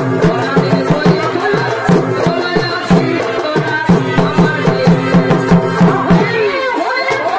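Chhau dance music: drums beating a fast, even rhythm under a wavering melody. The drums drop out near the end while the melody continues.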